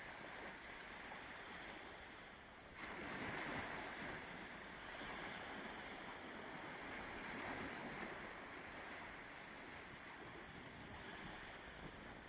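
Sea waves surging and breaking in a gale-force wind, with wind buffeting the microphone. A wave swells in louder about three seconds in, and another builds near the middle.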